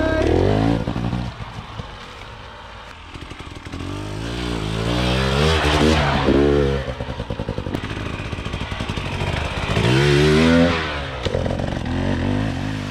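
Hard enduro dirt bike engine revving in repeated throttle surges, its pitch climbing and dropping, loudest about six seconds in and again around ten seconds in.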